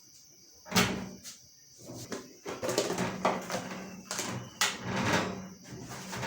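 Handling sounds: a couple of sharp knocks about a second in, then a busy run of taps, knocks and rustling as carrots are packed away at a freezer.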